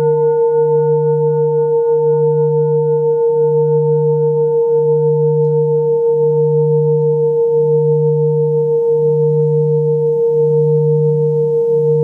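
Metal Tibetan singing bowls ringing on after a mallet strike. A clear tone with a few higher overtones sits over a low hum that throbs about every second and a half, and the ring fades very little.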